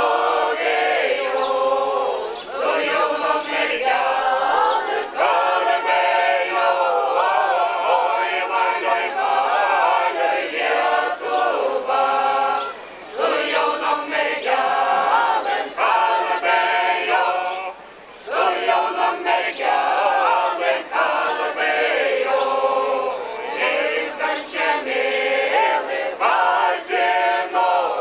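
A mixed folk choir, mostly women's voices with a few men, sings a Lithuanian folk song unaccompanied, in several parts. It breaks off briefly twice between phrases, about 13 and 18 seconds in.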